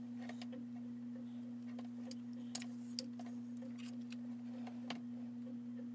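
A steady low hum at one pitch, with faint scattered light clicks over it.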